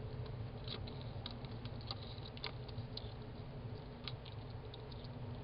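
Small sharp clicks from a hedgehog hoglet, coming about every half second for a few seconds and then more sparsely, which its owner wonders are hiccups. A steady low hum runs underneath.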